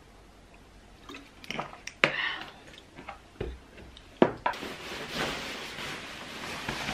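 Small knocks and clicks of a phone and a plastic water bottle being handled and set down. Then, a bit past halfway, the continuous rustle of a padded jacket's shell fabric as it is pulled on.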